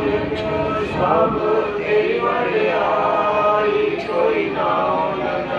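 Voices chanting a Sikh prayer in Punjabi, a melodic recitation with held, wavering notes.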